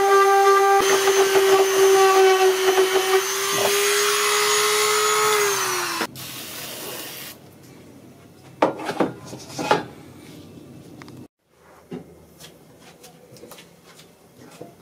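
A small high-speed rotary tool grinding the plastic on the inside of a cracked car bumper, its motor giving a steady high whine. About five seconds in the whine sags and winds down as the tool is switched off. A few scattered knocks and scrapes of handling follow.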